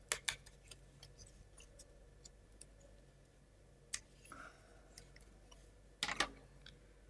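Faint, scattered clicks and light taps of thin plywood model-kit parts being handled and fitted together: a couple near the start, one about four seconds in, and a pair about six seconds in.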